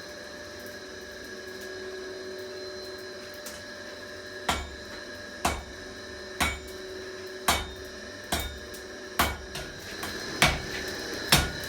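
Hand hammer striking hot steel on an anvil in a steady rhythm, about one blow a second, eight blows starting about four seconds in, over a steady background hum.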